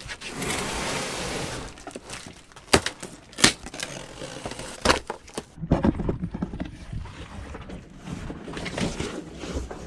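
Packing tape torn off a cardboard box, a rasp lasting about a second and a half, followed by a few sharp knocks and scattered rustling as the box is handled and opened.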